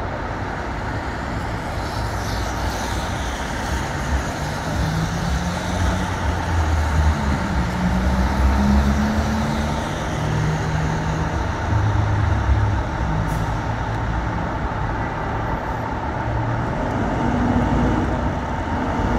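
Diesel engine of a Seagrave tractor-drawn aerial ladder fire truck running, its note rising and falling as it is revved, over steady street traffic noise.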